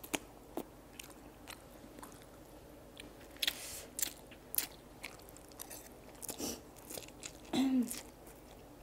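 Close-miked eating of instant noodles: wet mouth clicks and chewing, with several short slurps as strands are sucked in off a fork. A brief low hum from the eater's voice comes near the end.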